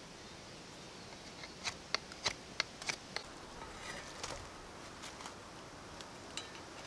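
Knife and hand work on a carved wooden stick and an iron frying pan's metal handle: a run of about six sharp clicks, roughly three a second, then softer scraping and a few light clicks.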